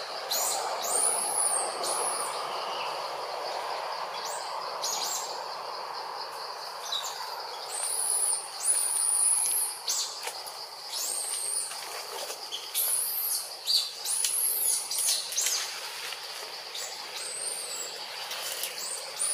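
Forest ambience: many short, high-pitched bird chirps come and go over a steady high insect whine and a soft background hiss.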